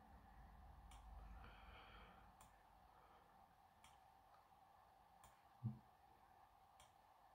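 Faint computer mouse clicks, one about every second and a half, as the on-screen map is dragged, over a low steady hum. A single short, low thump about three-quarters of the way through is the loudest sound.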